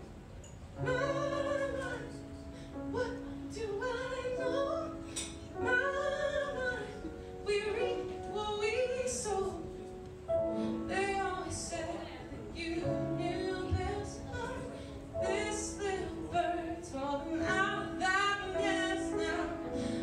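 A woman singing lead over a live band: acoustic guitar, grand piano and electric bass playing a pop-rock song.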